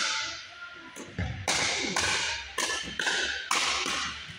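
Pickleball rally: paddles hitting a hollow plastic pickleball, a quick run of sharp pops about every half second, each echoing in the gym.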